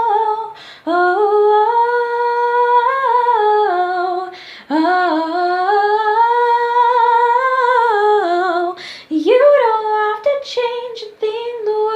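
A female voice singing a cappella, drawing out long held notes without clear words, with short breaths between phrases and shorter sung syllables near the end. The bathroom's hard walls give the voice a small-room echo.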